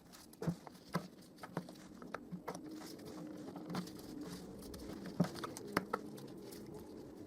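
Irregular light metallic clicks and knocks as the knife holder and knife are worked into a handheld power planer's cutter head.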